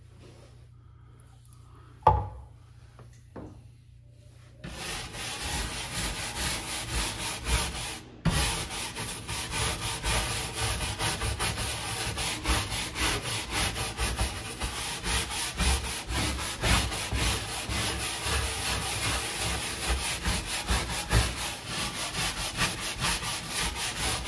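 Stiff-bristled scrub brush scrubbing a boat's textured non-skid deck in rapid back-and-forth strokes, working adhesive remover into spray-adhesive residue. A single sharp knock comes about two seconds in. The scrubbing starts about five seconds in and breaks off briefly a few seconds later.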